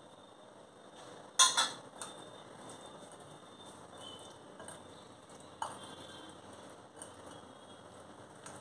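A steel bowl clinks sharply against a glass mixing bowl about a second and a half in, and there are a couple of fainter clinks later. In between comes the soft, faint sound of boiled potato, cucumber and onion being mixed by hand in the glass bowl.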